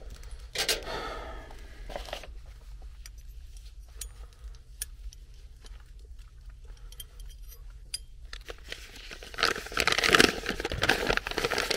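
Paper sheet crinkling and rustling as it is unfolded and handled, loudest in the last couple of seconds. Before that, scattered small clicks and light rustles of small parts being handled.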